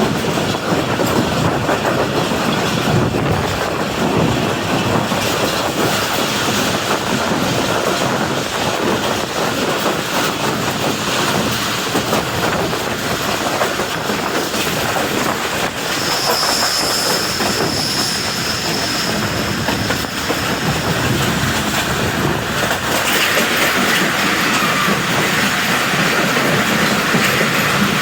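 Passenger train running on the track, wheels clattering over rail joints in a steady rumble. A brief high wheel squeal comes in about 16 seconds in and lasts a few seconds, and the running noise brightens a little near the end.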